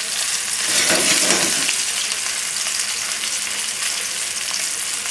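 Flour-dredged chicken thighs frying in hot oil in a stainless steel pan: a steady sizzle with crackling, which swells for a moment about a second in as the pieces are turned over.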